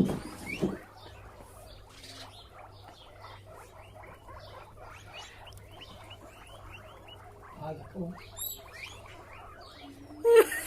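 Guinea pigs wheeking: many short, high, rising squeaks overlapping one another, louder near the end. This is excited begging for food at dinner time.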